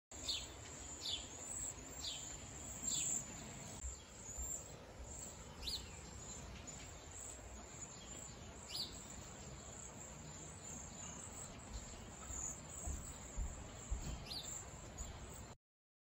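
A flock of cedar waxwings calling: a steady chorus of thin, very high-pitched notes, with short falling whistles every second or few. The sound cuts off abruptly near the end.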